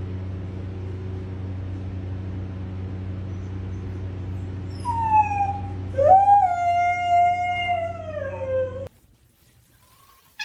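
A dog howls: a short whine about five seconds in, then one long howl that slowly sinks in pitch and breaks off suddenly. A steady low hum runs under it.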